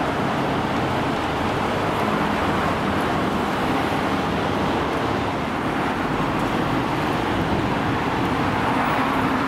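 Steady vehicle and traffic noise: an even rush with a low hum underneath, unchanging throughout.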